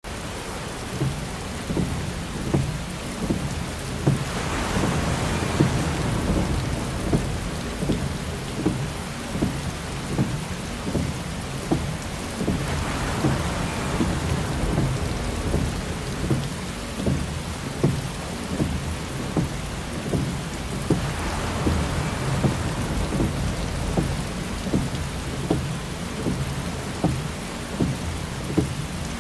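Heavy rain hitting a car's windshield in many separate drops. A windshield wiper swishes across the glass about every eight seconds, three times.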